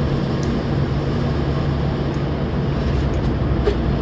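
Steady machine hum with an even hiss, a constant background drone of a running motor such as a shop fan or air conditioner.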